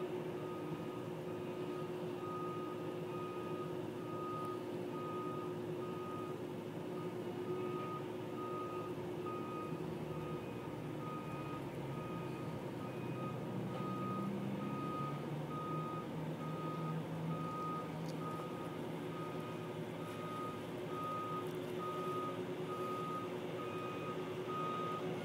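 Backup alarm of a rail maintenance machine, a ballast regulator, beeping steadily about one and a half times a second over its running engine, whose note rises and grows louder around the middle.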